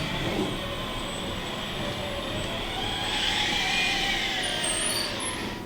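Whine of a radio-controlled model construction machine's electric motor and gearbox, rising then falling in pitch over a steady noisy background.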